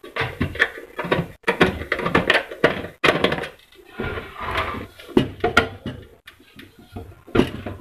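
Screwdrivers clicking and scraping on screws and fittings of a sheet-metal battery-charger cabinet, with irregular knocks from handling the box during assembly.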